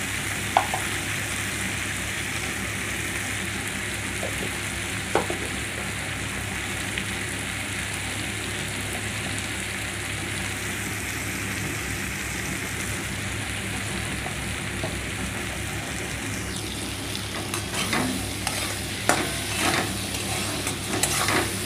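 Sliced onions and tomatoes frying in hot oil in a kadai, a steady sizzle. From about three-quarters of the way through, a metal spatula scrapes and clinks against the pan as the mixture is stirred.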